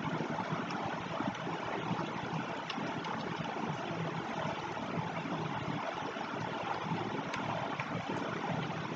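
Steady background hiss of room or microphone noise, with a few faint clicks.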